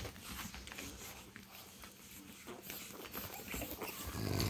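Faint sounds of a pug puppy moving about: scattered light ticks and soft animal noises, a little louder near the end.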